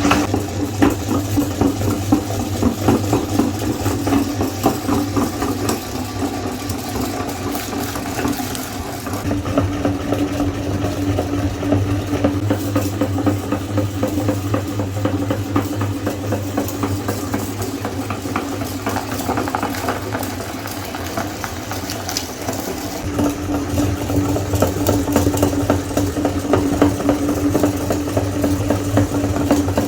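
Electric meat grinder running with a steady motor hum, crackling and rattling as it grinds Oreo cookies.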